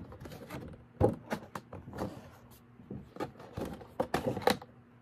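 A cardboard toy box with a clear plastic window being handled and turned over, giving scattered knocks, taps and crinkling rustles, the sharpest knock about a second in.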